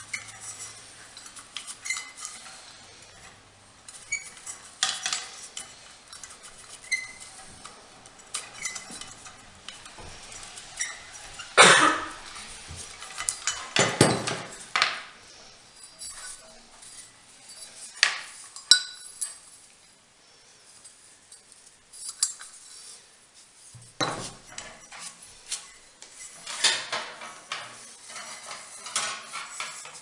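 Metal parts of an old Victorian doorbell being handled: the bell and its coiled spring strip clink, knock and rattle at irregular moments, a few strikes leaving a short faint ring.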